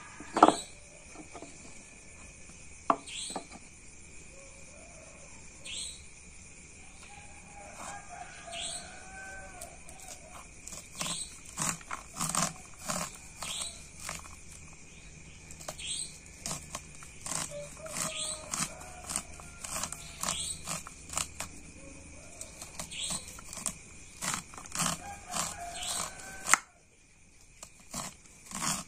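A kitchen knife chopping garlic into small pieces on a cutting board. A few sparse taps give way to busy runs of quick knocks about a third of the way in, which stop near the end.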